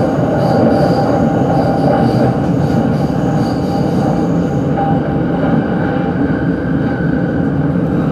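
Utsunomiya Line electric commuter train running along the rails, heard from inside the car: a steady, loud rumble of wheels and running gear. A thin high tone comes and goes during the first half.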